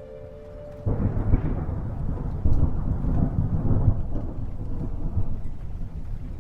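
A deep, rolling rumble that starts suddenly about a second in and swells several times, with the sound of thunder.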